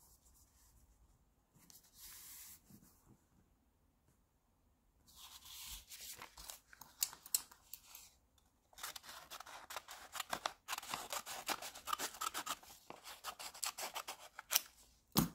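White paper rustling as sheets are picked up and handled, then small children's paper scissors snipping quickly and repeatedly through the paper for the last six seconds or so.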